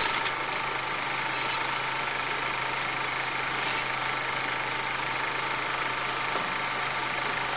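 Movie film projector running: a steady mechanical whir.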